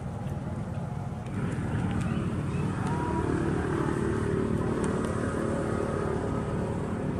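An engine running steadily, growing louder a little over a second in and holding.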